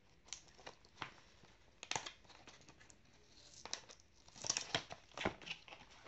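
Cardboard product boxes being handled and an end flap pulled open: scattered scrapes and clicks of card, a sharper one about two seconds in and a busier run of them near the end.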